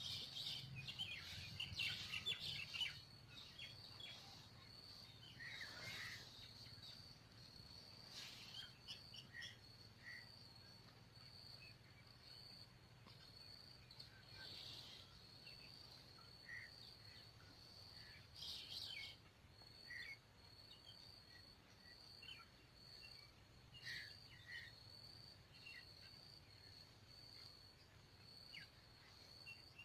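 Faint outdoor ambience: a steady high-pitched insect drone with scattered short bird chirps through it.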